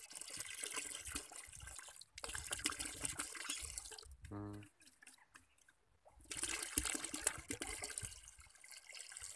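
Liquid poured from a plastic bottle into a plastic bucket, splashing and trickling in three spells with a pause a little past the middle.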